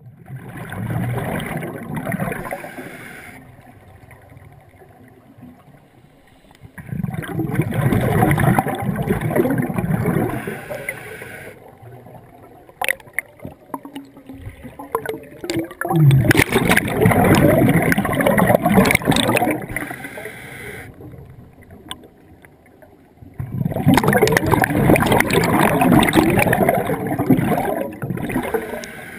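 Scuba diver's exhaled bubbles gurgling out of the regulator, heard underwater: four long bursts roughly seven to eight seconds apart, with quieter pauses between them while the diver breathes in.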